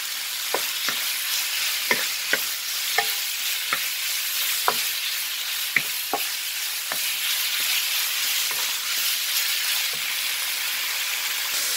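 Cubed pork sizzling in hot oil in a nonstick pan on high heat, browning. A wooden spatula stirring it clicks and scrapes against the pan now and then, mostly in the first half.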